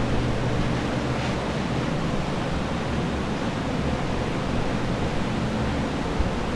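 Water-damage drying equipment running: air movers and dehumidifiers blowing, a steady noise with a low motor hum.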